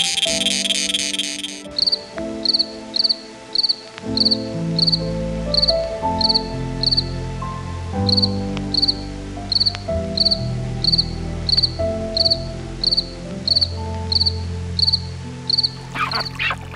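An insect chirping: a dense, pulsing buzz for the first couple of seconds, then short high chirps repeated about twice a second, over background music with a slow melody and bass.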